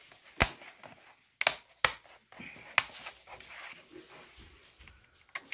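Plastic bottom access cover of a Dell Inspiron N5110 laptop being pressed and fitted into place: several sharp clicks, about four in the first three seconds and one more near the end, with soft handling rustle between them.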